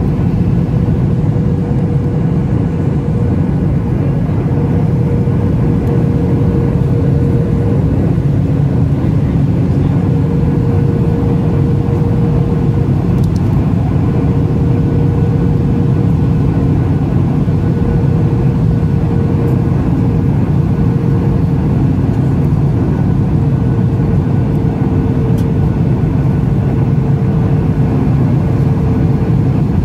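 Cabin noise of a Boeing 737 MAX 8 climbing out after takeoff: its CFM LEAP-1B turbofans running at steady power, a constant low rush with a steady hum, heard from inside the cabin.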